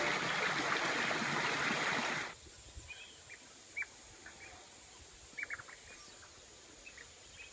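Shallow stream running over rocks with a steady rushing sound. After about two seconds it cuts to quieter outdoor ambience with scattered short bird chirps.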